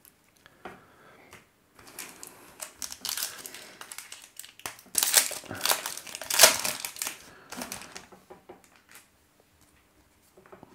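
Plastic wrapper of a pack of baseball trading cards crinkling and crackling as it is handled and opened by hand, loudest a little past the middle and fading away near the end.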